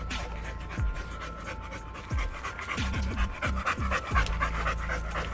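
American Bully dog panting hard and fast close to the microphone, a quick steady run of breaths.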